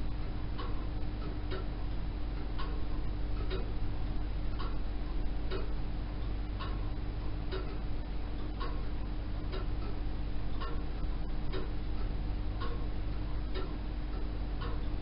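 Three Comtoise pendulum wall clocks ticking together, their ticks out of step with one another. The loudest tick comes about once a second, with fainter ticks in between, over a steady low hum.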